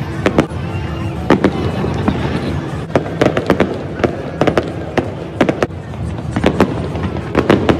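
Aerial fireworks display: a quick, irregular run of sharp bangs from bursting shells, about two or three a second, over a steady background din.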